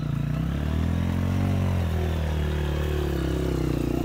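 Off-road motorcycle engine revving loud and steady close by. Its pitch rises and falls, then climbs and holds at higher revs near the end.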